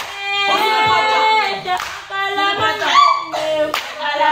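A group of women and girls singing together, with hand clapping.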